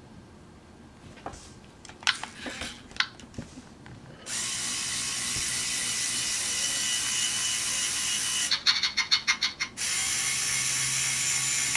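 Lego Mindstorms EV3 robot's electric motors and plastic gear train whirring with a steady whine as the robot drives back and forth, starting about four seconds in after a few light clicks. Just over a second of rapid clicking breaks in near the end.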